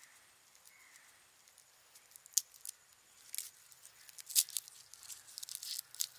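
Dry, papery garlic skin crackling and crinkling as fingers peel it from the bulb, a few sharp crisp crackles starting about two seconds in and coming more thickly near the end.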